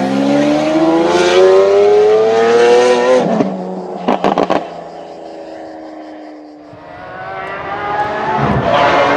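Lamborghini Aventador S V12 with a decat Capristo exhaust accelerating hard, its pitch rising steadily for about three seconds. It then comes off the throttle with a burst of sharp exhaust cracks and pops, and fades as the car pulls away. Engine sound swells again near the end.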